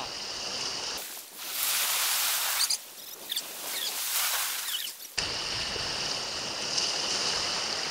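Fast-forwarded shoreline ambience: surf and wind sped up into a steady hiss, with a few brief high squeaks and sudden jumps in the sound where the footage is skipped ahead.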